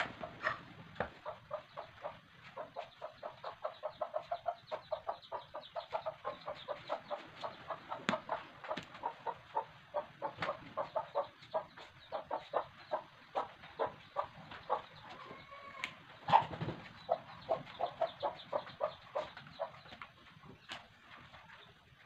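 Machete blade shaving the rind off wedges of a watermelon-like fruit in quick, even strokes, about three or four a second. A louder knock comes a little after halfway.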